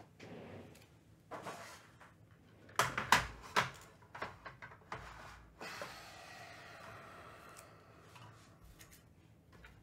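Trading-card packaging being handled on a table: a cluster of sharp clicks and knocks about three seconds in, then softer rustling.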